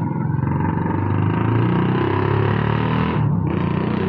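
Small motorcycle engine running loud and rough, with a rapid firing pulse. The upper part of the sound drops away briefly about three seconds in, as if the throttle is eased.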